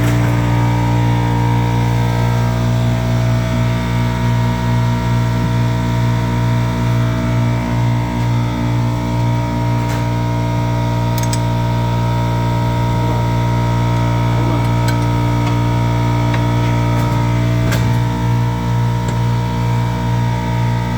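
Air compressor running steadily: a loud, low mechanical hum with a rapid pulsing from the pump, and a few faint clicks in the second half.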